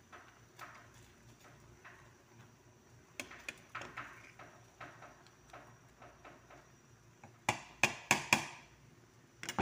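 Faint scattered clicks and taps, then a quick run of four sharp knocks about seven and a half seconds in and one more near the end.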